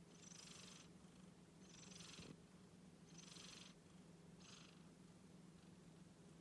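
Faint purring from a cat, rising and falling in four breathy swells as it breathes in and out.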